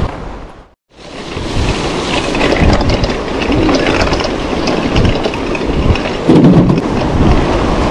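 Wind rushing over an action camera's microphone, with the rattle and crunch of a mountain bike's tyres and frame going fast down a rough dirt trail. The sound cuts out for a moment about a second in, then comes back with a loud low gust near the end.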